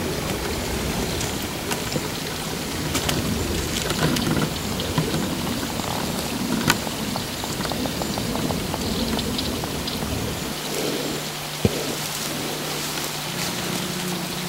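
Steady pattering noise like light rain, with many fine ticks and two sharp clicks. A low rumble drops away about ten seconds in, leaving a faint steady hum.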